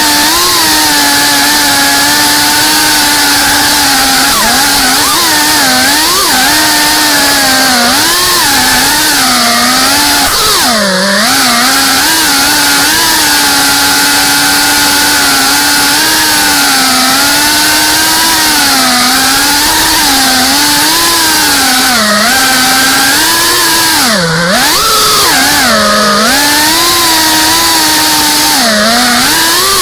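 GEPRC Cinelog 35 cinewhoop's brushless motors and ducted propellers whining in flight, the pitch dipping and swelling with each throttle change, with sharp drops about 11, 22 and 24 seconds in.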